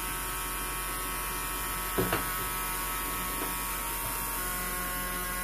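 Steady electrical buzz of a homemade generator rig, its small electric motor and driver circuit running. One short click comes about two seconds in.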